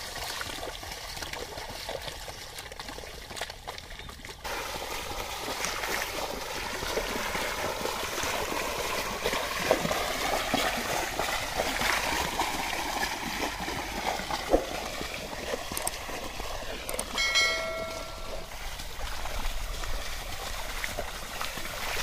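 Muddy water sloshing and splashing as a pair of bullocks drags a wooden leveling board through a flooded paddy field. A short pitched call sounds once, about three-quarters of the way through.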